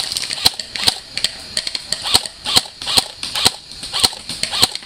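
AK-style airsoft electric rifle firing single shots, a sharp crack about two to three times a second at uneven spacing.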